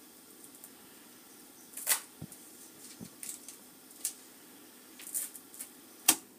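A handful of scattered short clicks and rustles over faint room tone, with one dull low knock among them; the sharpest click comes about six seconds in.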